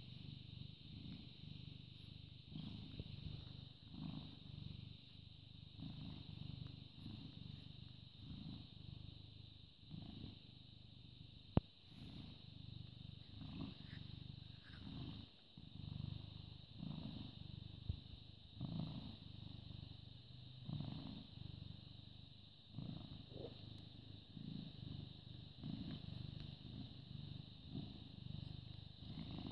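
British Shorthair cat purring close to the microphone, a low rumble that swells and fades with each breath. One sharp click about a third of the way through.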